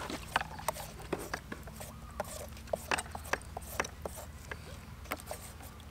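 Scattered small clicks and taps of hand food preparation: a knife peeling a green papaya and raw shrimp being handled in a steel bowl, irregular and unhurried, over a faint steady low hum.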